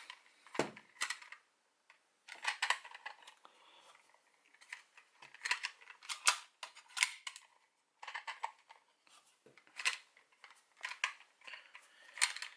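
Irregular sharp plastic clicks and clacks, some in quick clusters, from a toy Progrise Key being fumbled and flipped in the hand as someone tries to spin it.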